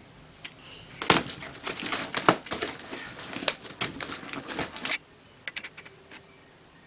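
Packaging crinkling and rustling as it is handled: a dense run of crackles and clicks for about four seconds, then a few faint clicks.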